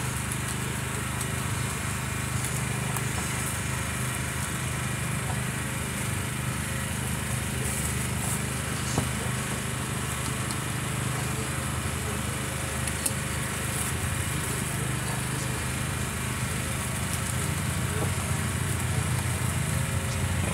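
A small engine runs steadily with an even, low hum. Two sharp taps come about halfway through and again a few seconds later.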